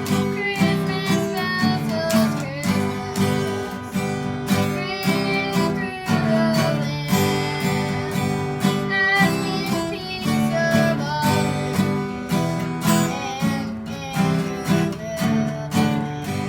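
Acoustic guitar strummed in a steady rhythm, with a singing voice carrying a melody over it.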